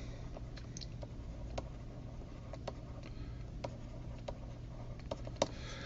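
Faint, irregular clicks of a stylus tapping on a tablet screen during handwriting, about ten of them spread unevenly, over a low steady hum.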